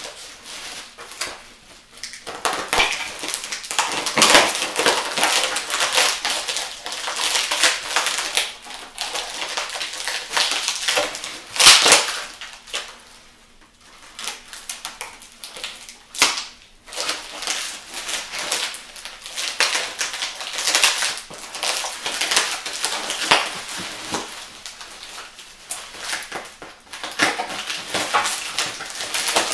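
Bubble wrap and packing tape being pulled and torn off a set of exhaust headers: irregular crinkling and crackling of plastic, with one louder crackle about twelve seconds in.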